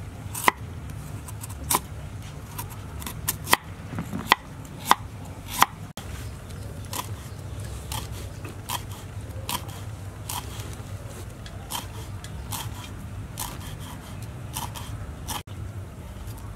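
Cleaver chopping on a wooden board: sharp, irregular knocks as it cuts through a galangal root, then after about six seconds softer, evenly paced strokes as it shreds leaves.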